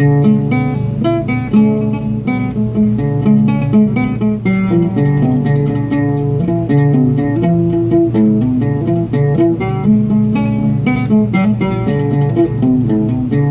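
Oud played solo, a fast run of plucked notes on a minor pentatonic scale.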